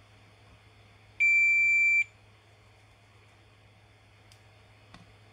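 Fluke digital multimeter's continuity beeper giving one steady high beep of just under a second, the sign that the probes are across a short or a direct connection, here to ground, on the circuit board. Two faint clicks follow near the end.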